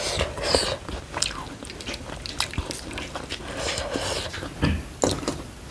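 Close-miked mouth sounds of a person eating rice and greens by hand: chewing with many short wet smacks and clicks of the lips and tongue.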